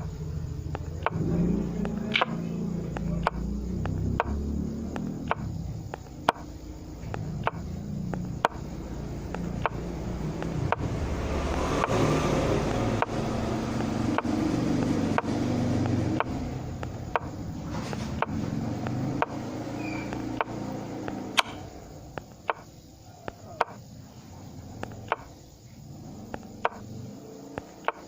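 Short, sharp clicks at uneven intervals over a low, steady rumble. The rumble swells around the middle and drops away in the last few seconds.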